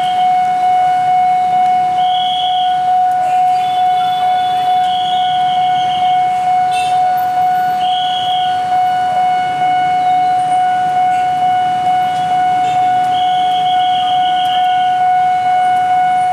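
Railway level-crossing warning alarm sounding a steady, pulsing electronic tone, the signal that a train is approaching the crossing.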